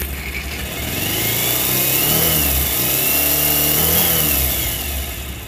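Bajaj Pulsar motorcycle's single-cylinder engine running and revved up, holding higher revs for a few seconds before dropping back. The engine has an abnormal noise that the owner says has been breaking up and rough, which the mechanic thinks could be an engine bearing or the balancer/weight pinion.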